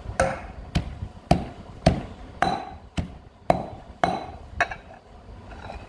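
Metal pestle pounding chillies and garlic in a metal mortar: about two thuds a second, some with a short metallic ring, about nine strokes before the pounding stops near the end.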